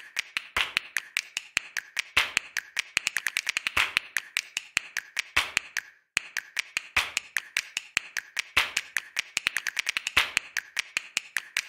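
Rapid, irregular clicks and taps, several a second, with a brief break about six seconds in.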